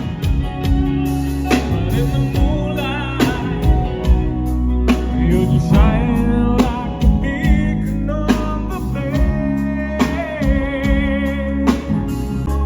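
Band music with a singer: a vibrato-laden lead voice over guitar, bass and a drum kit keeping a steady beat.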